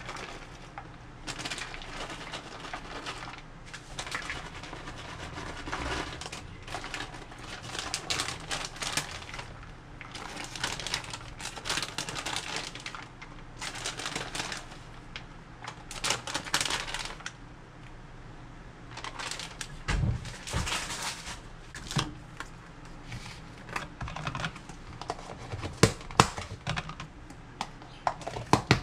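Plastic salad-kit bag crinkling and shredded salad dropping into thin plastic food containers, with irregular light clicks and taps of plastic. A few sharper knocks come later on as containers are handled.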